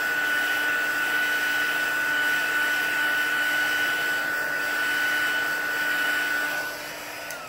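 Handheld craft heat tool (embossing heat gun) blowing steadily with a high whine, drying wet watercolour paint on paper; it drops a little near the end and then cuts off as it is switched off.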